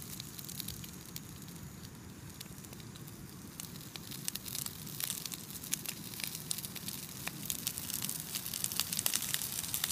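Sliced potatoes with bacon and onions sizzling and crackling in a frying pan on a camping stove. The crackling grows busier toward the end.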